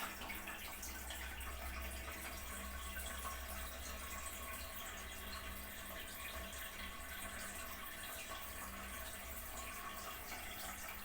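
Toilet cistern refilling after a flush: water running steadily into the tank, with a faint steady hum underneath.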